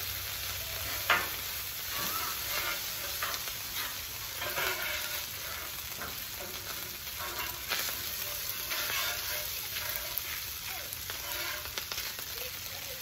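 Food sizzling on a hot hibachi griddle while a spatula stirs and scrapes it, with scattered scrapes and clicks over the steady frying hiss. One sharp clack stands out about a second in.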